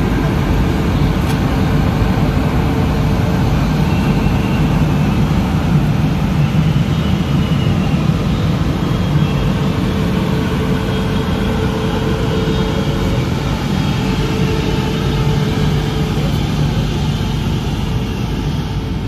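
A passenger train of LHB coaches, hauled by a WAP-7 electric locomotive, pulling out and rolling past: a loud, steady rumble of wheels on rail with a faint steady hum.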